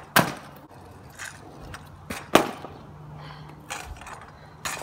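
Stunt scooter hitting asphalt during a heel rewind flat trick attempt. A loud clack comes just after the start and another about two seconds later, with lighter knocks of wheels and deck between.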